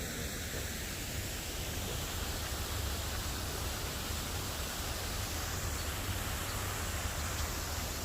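Steady outdoor rushing noise with a low, fluctuating rumble.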